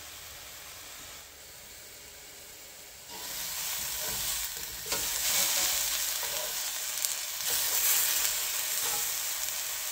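Pineapple rings sizzling in a hot cast-iron skillet. The sizzle gets louder about three seconds in as the rings are turned over with tongs, with a few light clicks of the tongs against the pan.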